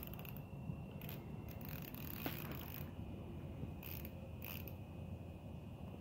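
Cheap ice-fishing rod's reel clicking in short, irregular bursts while fighting a large catfish on 2 lb line.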